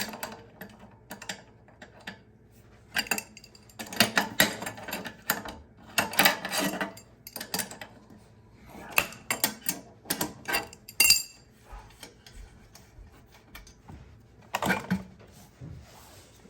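Irregular metallic clinks and clanks of hand tools and metal burner parts being handled on an oil-fired boiler, in scattered clusters, with one sharp ringing metal strike about eleven seconds in.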